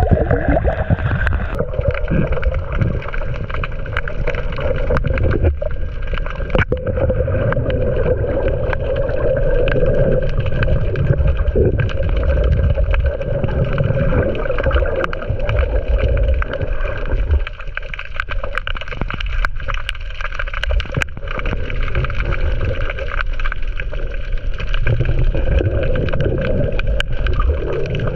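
Small boat's outboard motor running steadily, with water and wind rumbling underneath.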